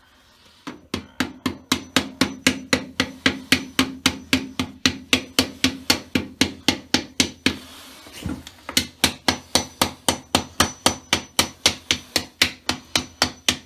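A hammer striking metal in quick, even blows, about four a second, each with a short ring. The hammering stops briefly about halfway through, then resumes at the same pace.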